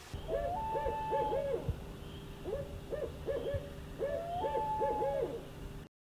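Owl hooting in two matching phrases, each a long held note followed by a quick run of short hoots, over a low steady hum. The sound cuts off just before the end.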